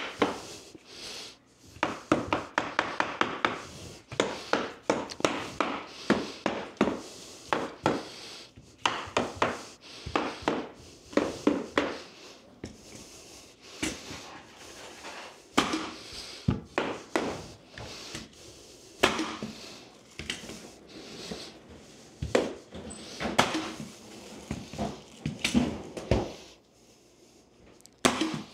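Mallet blows on a pneumatic flooring nailer driving nails into hardwood floor boards, along with boards being knocked into place. The knocks come sharp and repeated, often in quick runs of several, with short pauses between.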